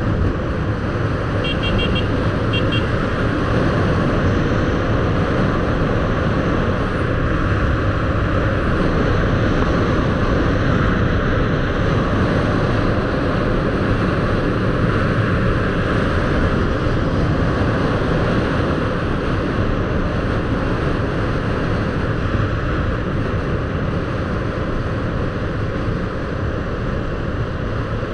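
Steady wind rushing over the microphone and road noise from a moving vehicle, holding level throughout.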